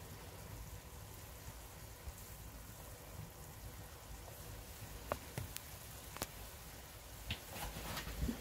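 Faint steady sizzling of an egg omelette mixture cooking in a cast iron dutch oven, with a few light ticks and pops a little past halfway.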